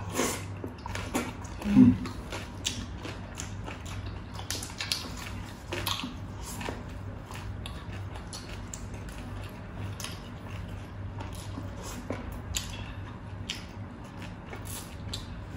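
Close-up chewing and crunching of crispy fried pork (crispy pata and lechon kawali), a string of short crisp crunches scattered irregularly. A brief low hum-like sound about two seconds in is the loudest moment.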